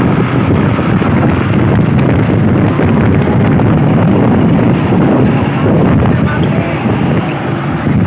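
Tour bus's diesel engine and exhaust running steadily, heard from close behind the rear tailpipes, with wind buffeting the microphone.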